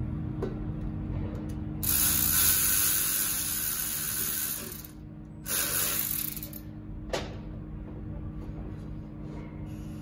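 Aerosol can of cooler-line flush spraying into a transmission cooler line in two hissing bursts, the first about three seconds long and the second about a second, followed by a sharp click.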